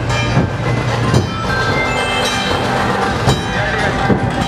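Dense street-procession din: a crowd with a few irregular drum strikes and sustained ringing metallic tones.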